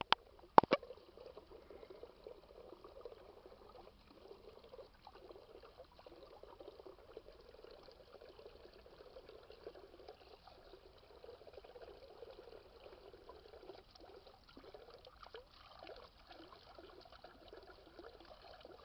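Small drinking fountain's spout trickling and splashing into its stone basin while a dog laps at the water. Two sharp clicks in the first second are the loudest sounds.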